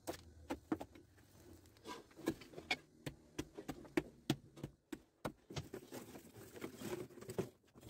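Irregular sharp taps and clicks, several a second, of a metal hand tool working against PVC drain fittings and concrete.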